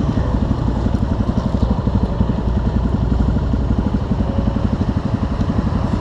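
Viar Cross X 200 single-cylinder motorcycle engine idling steadily with an even, rapid low pulse.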